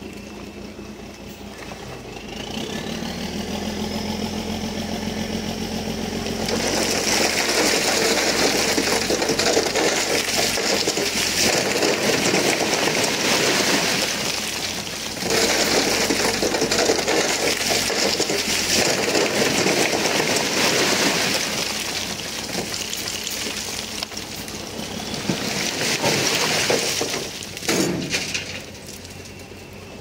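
Heavy diesel earthmoving machinery at work: an engine runs steadily, a whine rises over a few seconds, then a long stretch of loud, even noise with two short lulls, and a sharp knock near the end.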